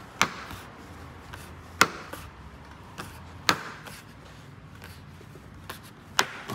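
A new belt molding snapping onto the pressure clips of a Lexus GX470 front door as it is pressed down by hand. Four sharp snaps come a second or two apart, with a fainter click among them.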